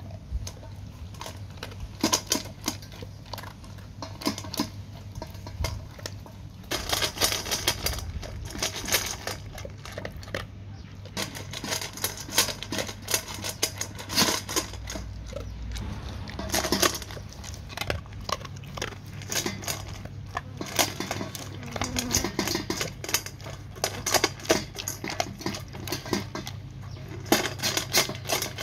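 A dog eating dry kibble from a stainless steel bowl: rapid, irregular crunching as it chews, with kibble and its muzzle clinking against the metal bowl.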